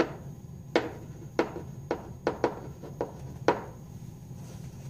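Pen tip tapping against an interactive whiteboard while a word is handwritten: about eight sharp, irregularly spaced taps.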